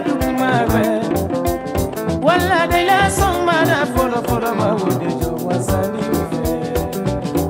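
Malian dance-band recording from 1981: drums and bass keep a steady beat under electric guitars. About two seconds in, a bending, wavering lead melody rises over it.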